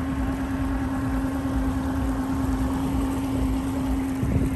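Pontoon boat's outboard motor running steadily: a steady hum over a low rumble.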